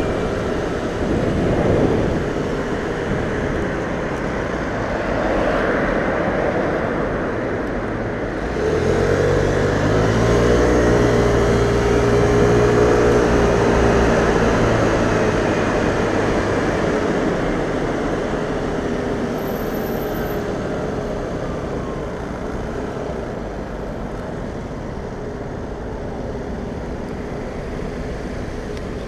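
Vespa scooter's single-cylinder engine running under way, mixed with wind and road noise from city traffic. For several seconds near the middle the engine drone stands out louder and clearer.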